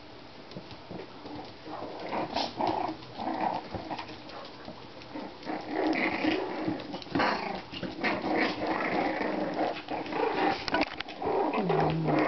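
Shichon puppies growling and yapping, with many short, irregular sounds overlapping one another and mixed with small scuffling clicks.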